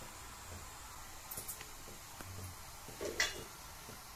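Mostly quiet kitchen room tone. A few faint clicks come about a second and a half in, and a short scrape-like burst about three seconds in.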